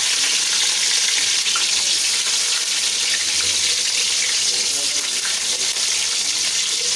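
Stuffed bitter gourds deep-frying in hot oil in an aluminium wok: a steady, loud sizzle with faint crackles, the oil bubbling hard around the freshly added gourds.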